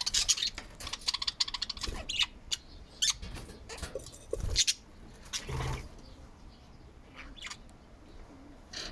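Budgies chattering: a rapid run of chirps, clicks and warbling notes, busiest for the first six seconds and sparser toward the end. A couple of low thumps come near the middle.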